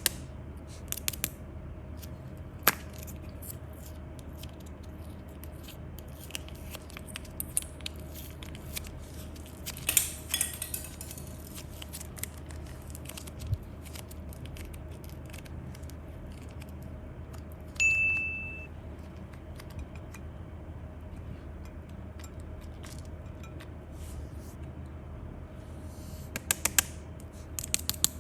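Scattered light clicks, taps and scrapes of small hard objects being handled, over a steady low hum. A short, clear high beep sounds about two-thirds of the way through.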